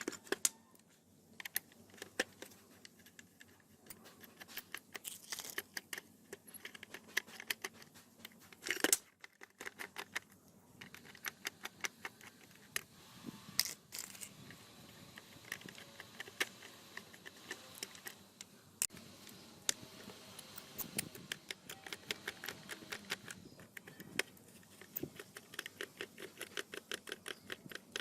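Hand work on a small model car's parts: many light clicks and taps in quick runs, with a louder knock about nine seconds in.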